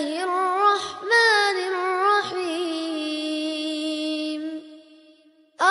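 Melodic Quran recitation (murottal) by a single high voice, with long, ornamented held vowels. The last note is drawn out for about two seconds and fades, leaving a short pause before the next phrase begins at the very end.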